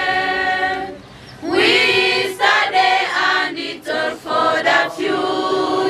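A school choir singing its anthem. A held note ends about a second in, and after a short pause the next line is sung.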